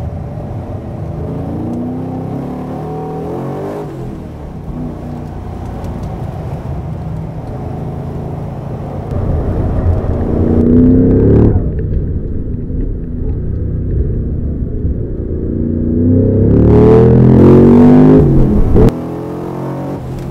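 HSV W427's 7.0-litre LS7 V8, heard from inside the car, pulling hard with revs climbing. It surges twice, easing between, is loudest in the second climb near the end, then drops off abruptly.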